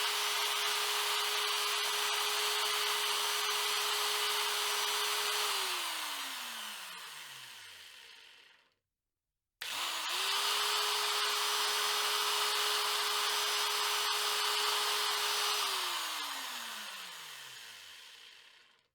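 Ferrex 40V cordless angle grinder motor, running with its failed control chip bypassed by a bodge wire. It runs steadily, winds down with falling pitch about six seconds in and stops, then starts again about ten seconds in, quickly spins up to the same speed, runs and winds down again near the end.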